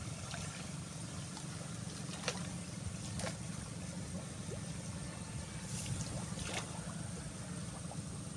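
Battery-powered backpack electrofishing rig running with a steady low buzz, broken by a few sharp clicks.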